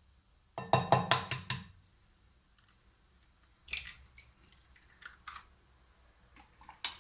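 Kitchen utensils and ingredients knocking and clicking against a mixing bowl: a quick run of about half a dozen taps, then a few scattered single taps.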